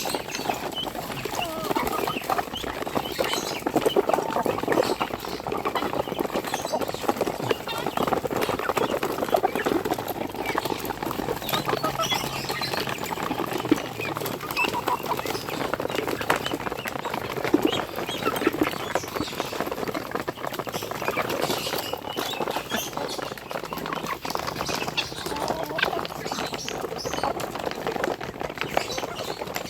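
A crowded flock of poultry calling and clucking together, with many small taps and clicks mixed in.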